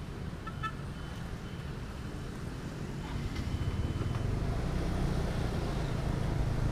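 Motorcycle riding noise: engine and wind rumble, growing louder about three to four seconds in.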